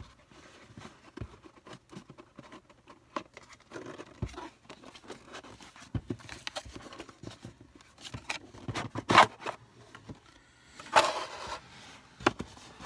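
Paperboard packaging being handled and opened: flaps lifted and box parts moved and set down on a wooden table, giving scrapes, rustles and small taps. The loudest scraping rustles come about nine seconds in and again about eleven seconds in.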